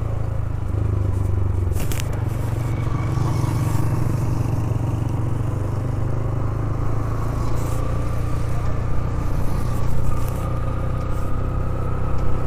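Motorcycle engine running steadily under way, with a heavy low drone of engine and road noise and a sharp click about two seconds in.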